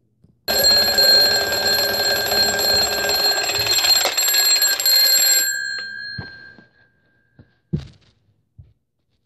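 Alarm clock bell ringing loudly for about five seconds, then cut off abruptly, its tones fading out over the next second. A few soft thumps follow.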